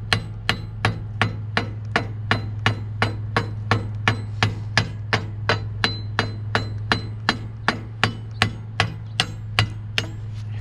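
Ball peen hammer striking a steel weld at a steady pace, about three sharp metallic blows a second, chipping off the slag left by the flux-coated welding rod. A steady low hum runs underneath.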